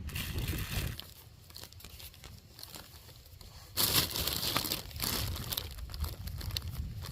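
Crinkling, rustling handling noise that becomes suddenly loud about four seconds in and stays dense and crackly.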